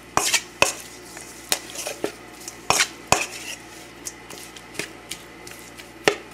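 A utensil clinking and scraping against a bowl while stirring seasoning into raw chicken pieces: a string of irregular sharp clicks.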